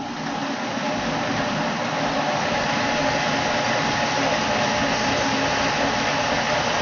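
Electric blender running steadily, puréeing watermelon chunks for a drink.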